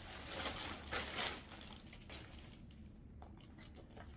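Packaging crinkling and rustling as a packaged pair of trousers is opened by hand. It is loudest in the first second and a half, then fades to a few soft rustles and clicks.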